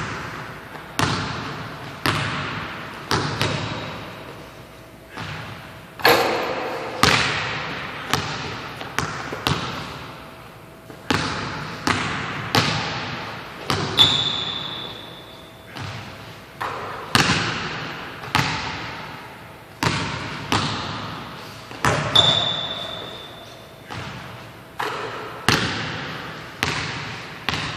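A basketball bouncing on a hardwood gym floor, dribbles and rebounds about once a second, each thud echoing in the large hall. Two brief high squeaks are heard, about midway and again near the end.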